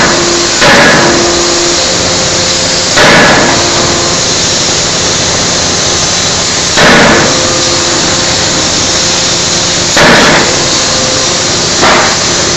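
Electro-hydraulic forging hammer striking a red-hot workpiece: five heavy blows, unevenly spaced a few seconds apart, over a steady loud hiss.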